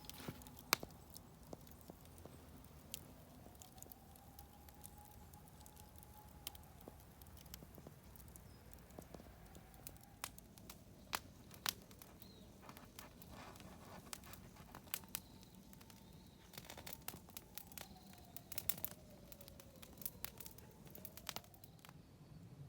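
Wood campfire crackling: irregular sharp pops and snaps, thicker in bursts around the middle and near the end, over a faint wavering whistle.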